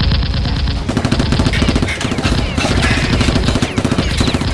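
Rapid automatic gunfire, a long run of shots at many a second with a few brief breaks.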